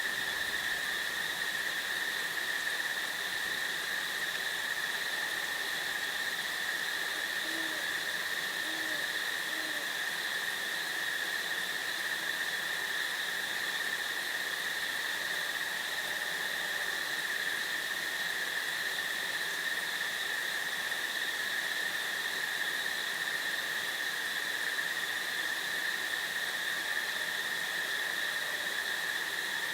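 Steady, even insect chorus, with three short, low owl hoots about eight to ten seconds in.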